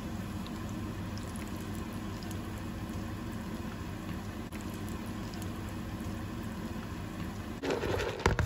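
Fish patties shallow-frying in hot oil in a pan: a steady sizzle with small crackles and pops. Near the end a louder, rougher burst with a couple of sharp knocks cuts in.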